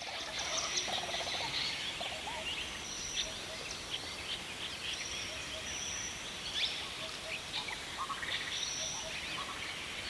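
Many birds chirping and calling over a steady outdoor hiss, with quick rising and falling chirps and a few short held high whistles.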